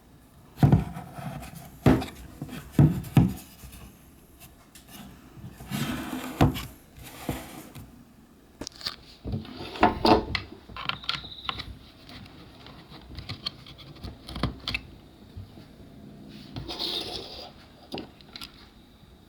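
Handling noises: irregular sharp knocks and clacks, with spells of scraping and rubbing. The loudest knocks come in the first few seconds.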